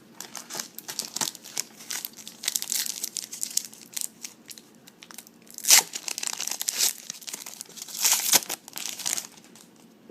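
Foil trading-card pack being torn open and its wrapper crinkled and crumpled, in irregular crackly bursts, loudest about halfway through and again near the end.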